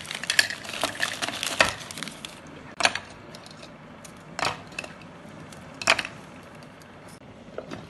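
A plastic biscuit wrapper crinkles for about two seconds. Then come three sharp clicks, about a second and a half apart, as chocolate cream biscuits are broken by hand and dropped into a plastic food-chopper bowl.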